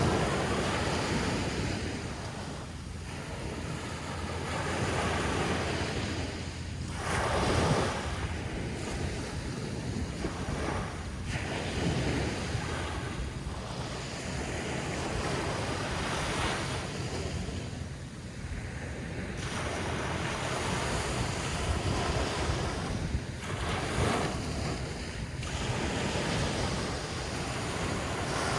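Atlantic Ocean surf breaking on a beach, the wash swelling and falling back every few seconds, with wind rumbling on the microphone.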